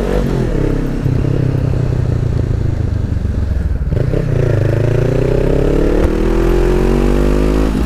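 Honda CB 500F parallel-twin engine through a Jeskap aftermarket exhaust, under way. The note breaks at a gear change about four seconds in, then rises steadily as the bike accelerates, with another shift near the end.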